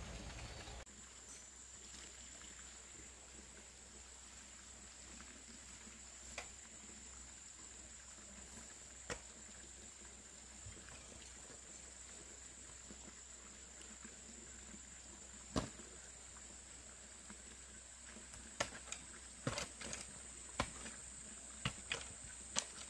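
Insects shrilling steadily in a high, even tone, with scattered sharp clicks or knocks that come closer together in the last few seconds.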